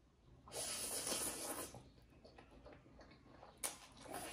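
Close-up mouth sounds of someone slurping instant ramen noodles: a long noisy slurp about half a second in, then soft wet chewing clicks, a sharp click near the end and another slurp.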